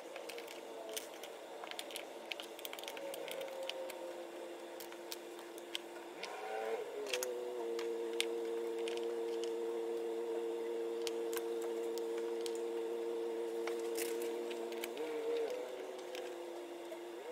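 Light plastic clicks and taps of nail swatch tips being handled and stuck into a swatch book. A steady motor-like hum rises in about six seconds in, holds for about eight seconds, then falls away.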